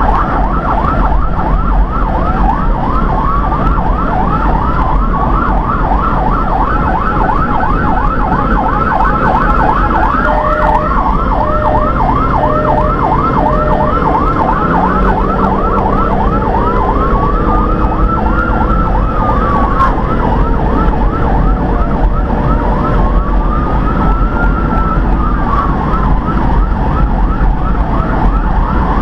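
Emergency-vehicle electronic siren sounding on a responding vehicle: a rapid yelp of several sweeps a second, switching about halfway through to a slow wail that rises and falls every few seconds. A run of four short beeps sounds near the middle, over steady road and engine noise.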